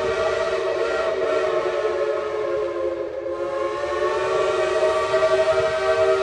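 Steam locomotive whistle sounding one long, loud blast, several steady notes held together, briefly weaker about halfway through.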